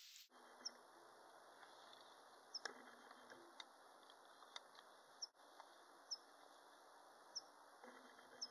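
Very faint steady hiss with a short, high, falling chirp repeating roughly once a second, and a few faint clicks.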